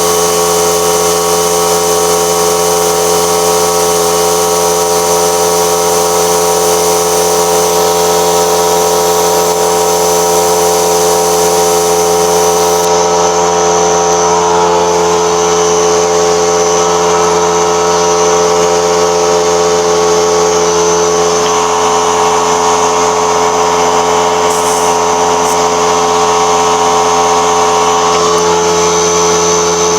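A motor-driven machine or power tool running continuously at a constant speed, a loud steady hum-whine with many fixed pitches.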